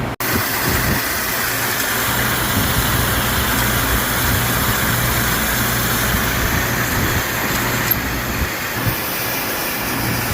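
CNC milling machine running: a steady low hum under a loud, even hiss.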